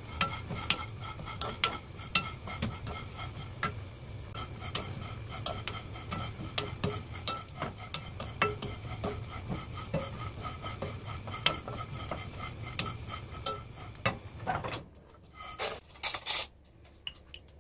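Small dried anchovies dry-roasting in a frying pan with no oil, stirred continuously: a steady hiss with frequent sharp clicks and scrapes of the utensil against the pan. Near the end the stirring stops and a spoon knocks a few times against a pan.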